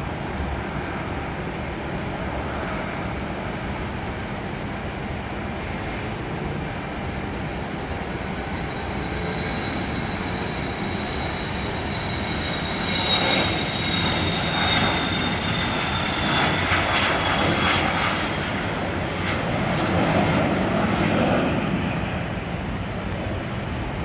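Dassault Falcon 2000EX's twin Pratt & Whitney PW308C turbofans at takeoff power: a steady jet rush with a high whine that slowly falls in pitch. The sound grows louder about halfway through and eases off near the end.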